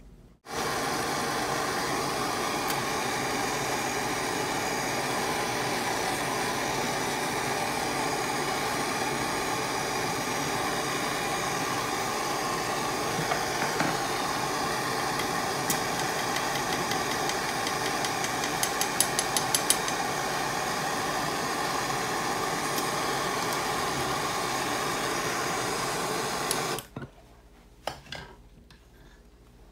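Handheld gas torch flame burning with a steady hiss on freshly poured silver. There is a short run of quick clicks about two-thirds of the way through, and the torch cuts off abruptly near the end.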